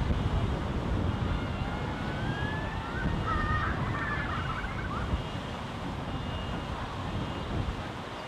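Wind buffeting the microphone, an uneven low rumble over steady outdoor hiss. A faint tone glides up and down between about two and five seconds in.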